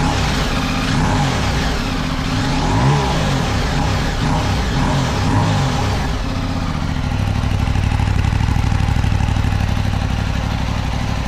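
Aprilia Tuareg 660's parallel-twin engine through a Spark titanium Dakar exhaust with the DB killer fitted, revved several times with rising and falling pitch, then settling to a steady, pulsing idle about six seconds in.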